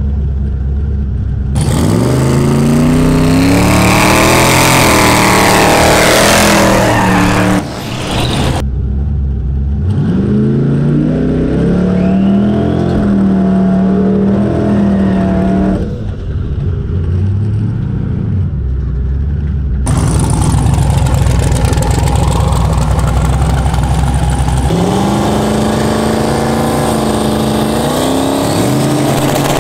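Twin-turbo LS V8 of a fourth-generation Camaro Z28 running: it revs up in pitch several times, with a steadier stretch in the middle, and the sound changes abruptly a few times.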